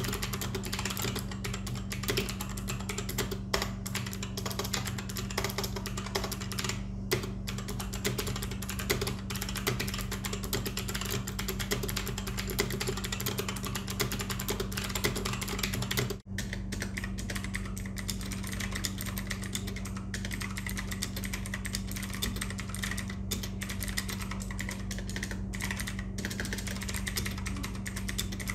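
Continuous fast typing on the NYK Nemesis Venom Pro mechanical keyboard: its blue optical switches give clicky, clattering keystrokes on ABS keycaps, with a brief break about halfway through. A steady low hum runs underneath.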